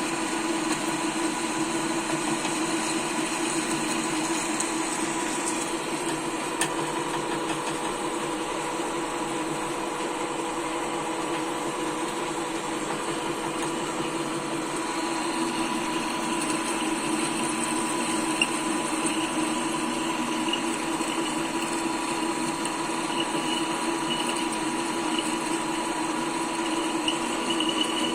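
Machine tool running steadily on its own, a continuous motor hum with a fixed pitch; about halfway a higher scraping sound with faint ticks joins it as it cuts.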